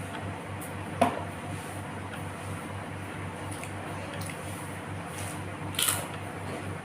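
Close-up eating sounds: wet, squishy chewing, with a sharp click about a second in and a louder crisp crunch near the end, over a steady low hum.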